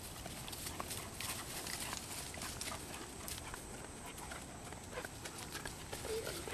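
Footsteps crackling and rustling through dry leaves, twigs and undergrowth, a run of short, irregular crackles that is busiest in the first half.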